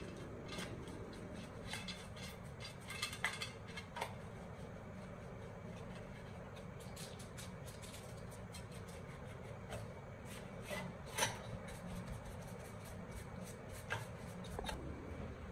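Paintbrush sweeping over the glass of a CRT picture tube, brushing off dust and debris: a steady scratchy swishing with scattered light ticks and scrapes, a few sharper ones about three seconds in, near eleven seconds and near the end.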